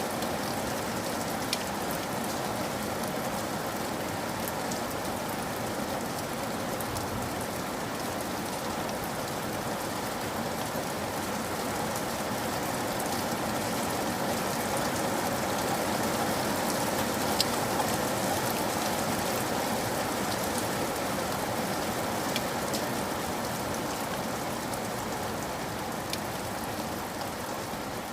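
Steady rain falling, an even hiss with occasional sharper drips striking a surface.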